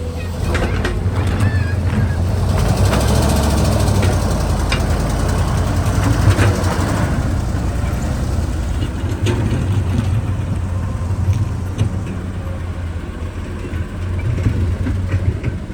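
Excavator engine running steadily under load, louder for a few seconds in the first half, with scattered sharp knocks and rattles from the working machine.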